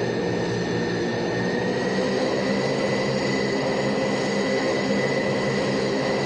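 Lockheed C-130J Super Hercules's Rolls-Royce AE 2100 turboprops and six-bladed propellers running steadily: a deep propeller hum with a high turbine whine that climbs slightly about two seconds in.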